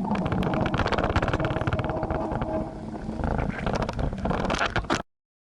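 Typhoon wind buffeting the microphone: a loud, rough rumble with dense crackling that eases briefly and then picks up again. It cuts off abruptly about five seconds in.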